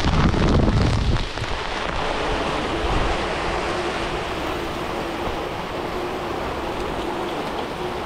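Heavy rain pouring steadily, with wind buffeting the microphone for about the first second.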